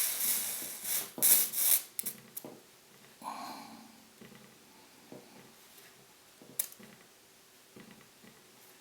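Soldering iron sizzling on orthophosphoric-acid flux as solder is run into the twisted steel leader wire: several short hissing bursts in the first two seconds and a softer one a little after three seconds, then a few faint clicks and taps.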